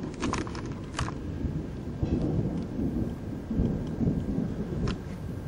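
Rolling thunder: a low rumble that swells and ebbs unevenly, with a few sharp clicks in the first second and one more near the end.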